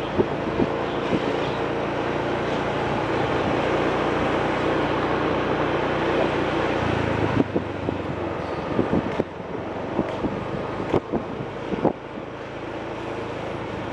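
Vehicle engine running steadily with wind rushing over the microphone. About seven seconds in, the engine note steps down to a lower pitch, and a few short clicks follow.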